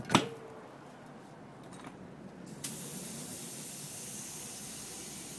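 A sharp bang as the flammable spray inside the tire ignites and the bead seats on the steel rim. About two and a half seconds in, a steady hiss of compressed air starts from the air hose's chuck at the valve as the tire inflates.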